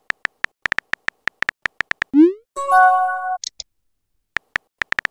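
Simulated phone keyboard typing clicks, about six a second. Near the middle a rising swoosh and a short synthesized chime mark the text message being sent. A few more typing clicks start near the end.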